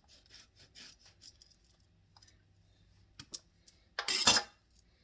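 Faint scratching as a produce sticker is peeled off an eggplant, then a couple of clicks and a short, loud clatter about four seconds in.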